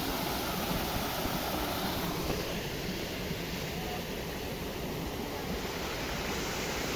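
Sea waves washing in, a steady rushing noise with no break.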